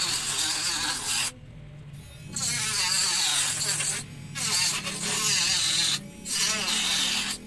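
Cordless mini grinder, a small 1800 rpm battery rotary tool, cutting through thick PVC pipe with a thin cut-off disc, its motor whining and wavering under the load as the cut goes slowly. The cutting stops for about a second a little past the first second, then twice more briefly.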